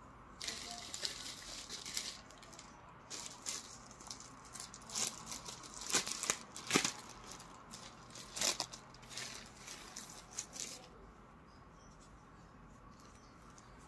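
Clear plastic packaging bag crinkling and rustling as hands crumple and handle it, in irregular crackly bursts that stop about eleven seconds in.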